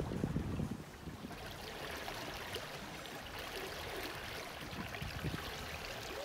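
Water rushing and splashing along the hull of a sailboat under way, with a low gust of wind on the microphone in the first second.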